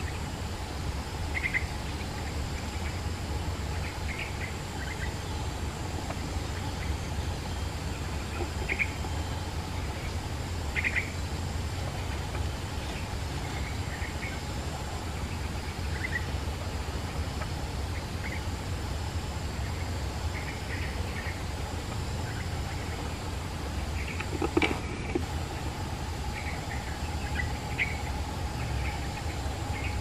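Forest ambience: a steady insect drone with short, scattered bird chirps over a low rumble, and one brief louder knock about three-quarters of the way through.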